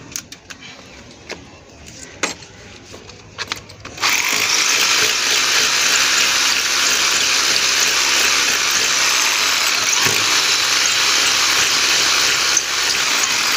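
A few light knocks, then about four seconds in a hammer drill with an 8 mm masonry bit starts drilling into a brick wall and runs steadily to the end. It is reaming out a hole that was too tight for the plastic wall plug.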